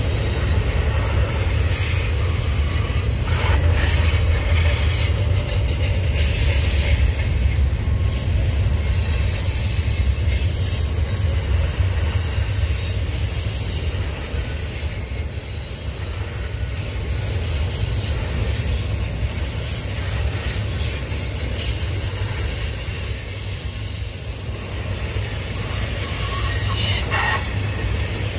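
Double-stack container well cars of a Union Pacific intermodal freight train rolling past, a steady low rumble of steel wheels on rail.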